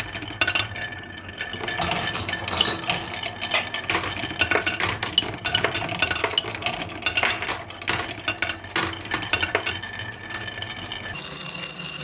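Marbles rolling and clattering down a marble run, with many quick irregular clicks as they knock against the track and each other.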